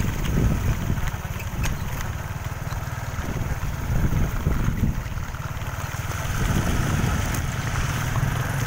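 Motorcycle ride heard on a phone's microphone: an engine running under a heavy, uneven rumble of wind buffeting the microphone.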